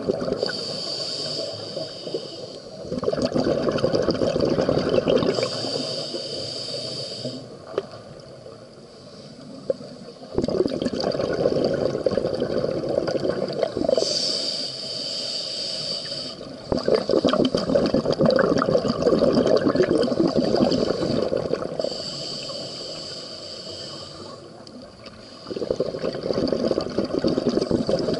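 Scuba breathing through a regulator underwater: four hissing inhales, each about two seconds long, each followed by a longer gurgling rush of exhaled bubbles.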